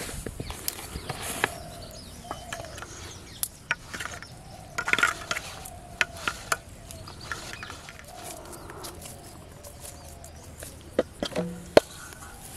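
Hands working fish-bait dough in a steel bowl: scattered clicks, scrapes and knocks, the loudest a sharp knock with a brief ring near the end. Birds call faintly in the background.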